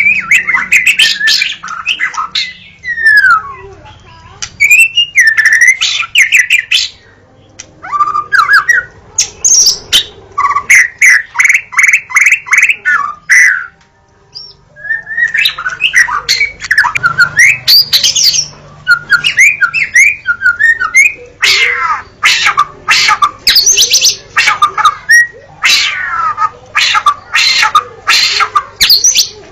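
White-rumped shama (murai batu) singing loud, varied phrases of gliding whistles, trills and rapid runs of short sharp notes. There are brief pauses about seven and fourteen seconds in.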